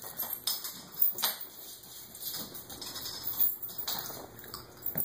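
Small dogs scampering after a tossed bottle cap: scattered light clicks and clatters of claws and the cap on a hard floor.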